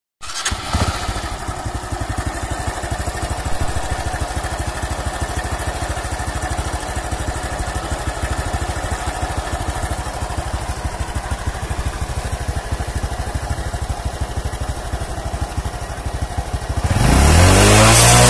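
Honda Absolute Revo single-cylinder four-stroke engine idling steadily just after a cold start, running fairly smooth despite a stretched, worn cam chain and tensioner roller. About a second and a half before the end, a much louder sound with sweeping rising and falling pitch cuts in.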